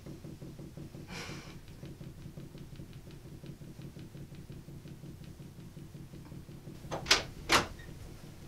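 Two sharp clicks about half a second apart near the end, a door handle and latch being worked. Under them is quiet room tone with a steady low hum and faint, evenly spaced ticking.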